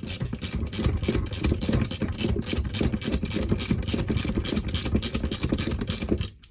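A power tool running with a rapid, rattling hammering, cutting off suddenly near the end, while stuck case bolts on a small engine are being loosened.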